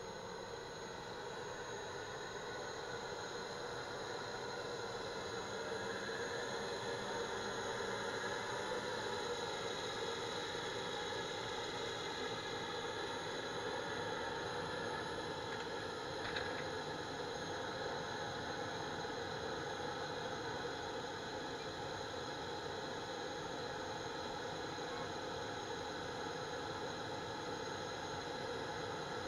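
Turbine-driven generator of a 2K12 Kub (SA-6) missile launcher running with a steady high whine, with the launcher's drives whirring as the missile rail slews round and elevates. A single short tick about halfway through.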